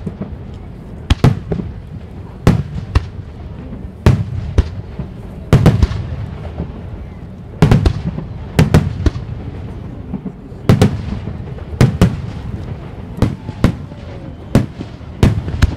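Aerial firework shells bursting in quick succession: sharp bangs, often in close pairs, about one to two a second, over a continuous low rumble.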